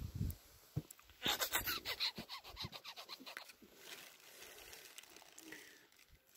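Snow crunching and scraping underfoot: a quick run of short crunches from about one to three and a half seconds in, then fainter rustling.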